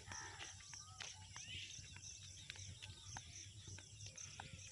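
Rural field ambience: a high chirp repeating about three times a second, a few bird calls and light footsteps on a dirt road.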